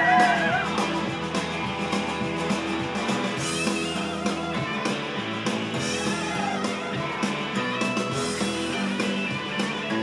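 Rock band playing guitar-led music over a steady drum beat, with a sung note trailing off right at the start.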